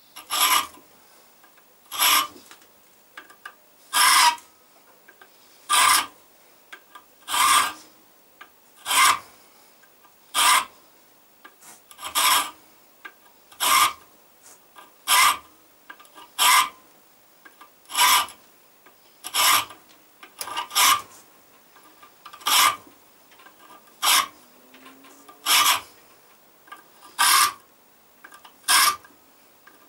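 Hand file rasping across the steel spine of a knife blank, cutting small grip notches (jimping). About nineteen slow, even strokes, roughly one every one and a half seconds.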